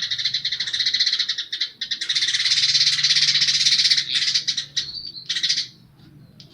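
Weaver (manyar) singing a fast, buzzy chattering song laced with house sparrow-style chirps, which the bird has picked up as a learned fill-in. The song is densest around the middle and breaks into separate chirps before stopping just before the end.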